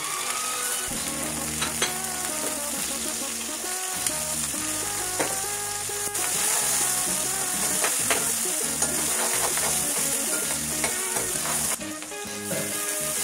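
Sliced green chillies and garlic sizzling in hot oil in a wok, with a steel ladle stirring and scraping against the pan now and then.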